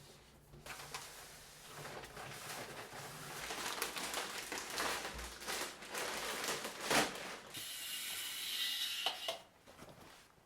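Rapid, irregular clicking and rattling of household items being handled, with a steady hiss for about a second and a half near the end.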